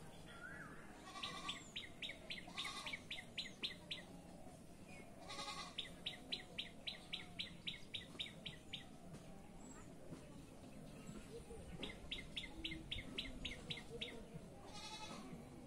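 Faint background animal calls: three runs of rapid, evenly spaced clicking chirps, each lasting a few seconds, with a few short calls in between.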